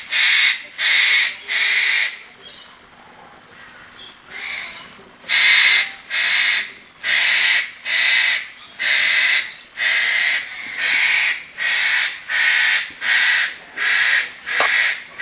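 A bird calling loudly over and over, a harsh call of about half a second repeated at a steady pace. Three calls come at the start, then a pause of a few seconds, then a run of about a dozen more.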